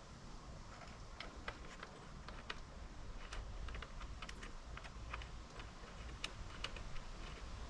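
Light, irregular clicks and taps of small metal parts and a tool being handled on the workbench, likely screws being removed and greased.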